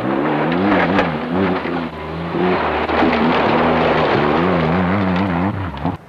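Rally car engine revving hard, its pitch rising and falling again and again as the driver works the throttle and gears, over the rush of tyres on loose gravel. The sound cuts off sharply just before the end.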